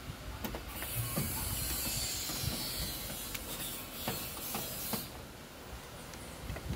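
Roasting cocoa beans being stirred with a wooden stick in a pot: a dry rustling hiss of the beans sliding, lasting about four seconds and stopping near the end, with occasional clicks of beans and stick against the pot.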